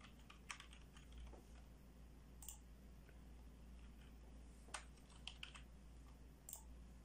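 Faint computer keyboard typing and clicks: a quick run of keystrokes in the first second, then scattered single clicks, over a low steady hum.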